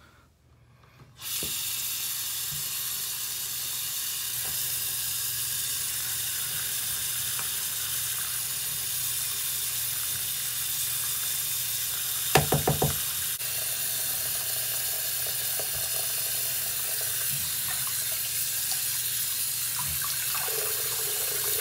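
Bathroom sink faucet turned on about a second in and running steadily into the basin, with a razor and then a washcloth held under the stream. About halfway through, a brief run of several quick, loud knocks.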